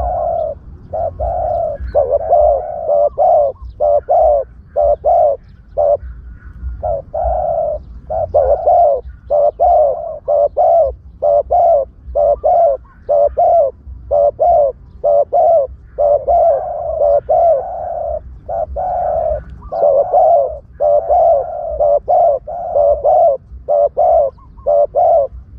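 Spotted dove cooing over and over, a long run of short low coos in quick groups, played as a decoy call to lure spotted doves into a trap.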